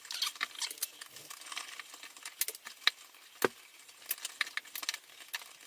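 Pliers working a wire loose from an old electrical outlet: irregular small metallic clicks and ticks, with one sharper click about three and a half seconds in.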